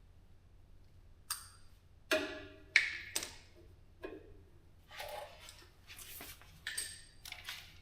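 Metal parts and tools clanking as they are handled: about eight separate sharp knocks and rattles, some with a short metallic ring, the loudest about three seconds in.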